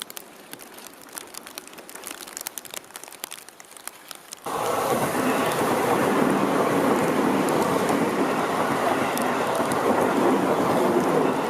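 Rain falling, with drops ticking sharply close by. About four and a half seconds in, a loud, steady rumble of a Seibu Ikebukuro Line commuter train passing close by comes in suddenly and holds.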